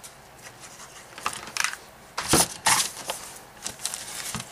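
Paper tag envelopes and cardstock being handled and pressed together: a run of short, irregular rustles and crinkles, the loudest a little past the middle.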